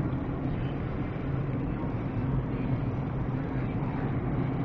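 Steady engine and road rumble of a car driving.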